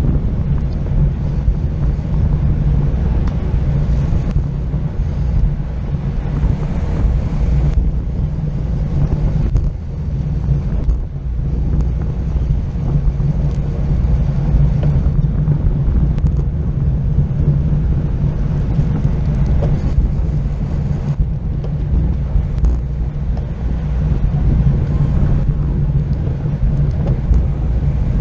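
Steady wind buffeting on the microphone of a camera mounted on a road bike moving at racing speed, a loud low rumble that never lets up.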